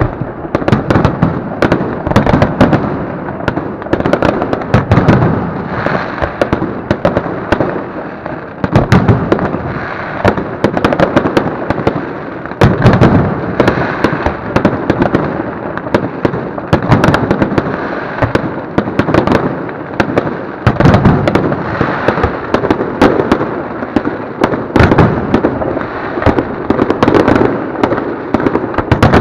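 Fireworks display: aerial shells bursting in a dense, continuous barrage of bangs and crackling, with heavier booms every few seconds.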